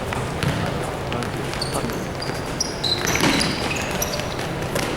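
A basketball being dribbled on a hard court, its bounces heard as scattered thuds. Several short high sneaker squeaks on the floor come in the middle.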